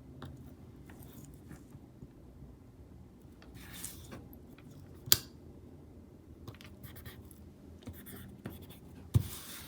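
Paper planner stickers being moved and pressed onto planner pages: soft scratching and rustling, with two sharp taps, one about five seconds in and one near the end.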